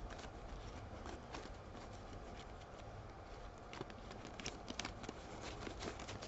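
Faint rustling and light tapping of paper and cardstock scraps being flipped through by hand, the taps coming more often in the second half.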